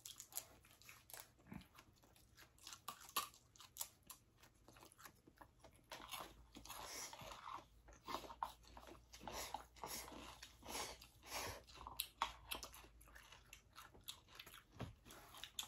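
Faint chewing and crunching as two people eat, biting into crisp raw vegetables: a steady run of short crackles and clicks.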